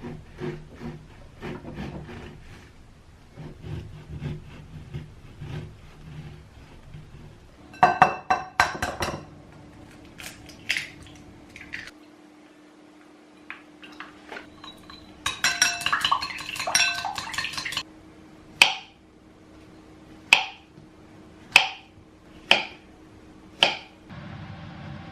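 Kitchen utensils clinking and clattering against dishes and cookware, ending in five sharp taps about a second apart, over a steady low hum.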